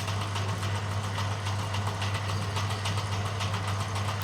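Bamboo-thinning machine running steadily with a constant low hum and a fast patter of light ticks as it works a bamboo strip.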